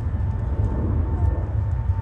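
Jet engines of a KLM Boeing 777-200ER, a steady low rumble with a faint steady whine above it.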